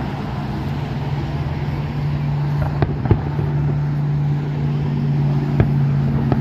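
A steady low engine hum, with a few sharp bangs of fireworks going off, about three seconds in and again near five and a half seconds.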